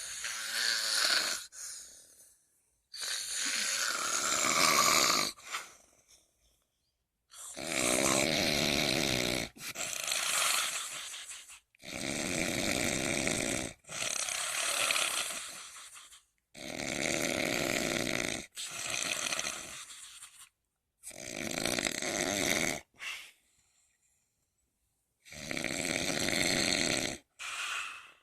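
Snoring: long snores coming mostly in pairs, one full cycle about every four to five seconds, with a longer pause about two-thirds of the way through.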